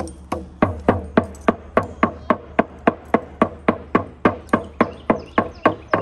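Hand-held frame drum beaten with a padded beater in a steady, even beat of about three to four strikes a second.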